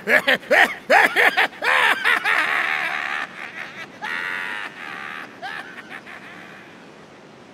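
A man's hearty laughter: a quick run of short "ha" bursts, then a long drawn-out laugh that slowly fades away.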